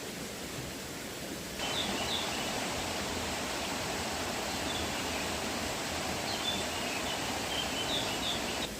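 Steady rush of flowing river water, with small birds chirping briefly over it. The water sound cuts in louder about a second and a half in and drops back just before the end.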